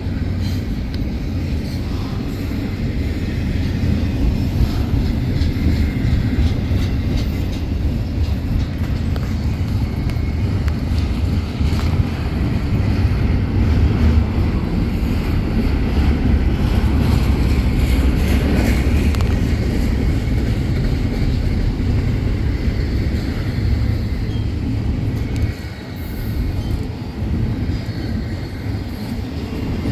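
Union Pacific train rolling past on the rails: a steady, loud, low rumble of wheels and cars that dips briefly near the end.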